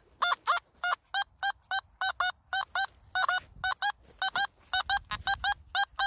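Nokta Makro Simplex metal detector giving a run of short, same-pitched target beeps, often in pairs, as the coil sweeps back and forth over a buried target. The screen shows a target ID around 30, which she takes for likely aluminium.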